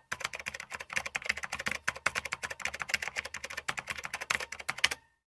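A rapid, uneven run of light clicks, many a second, that stops abruptly near the end.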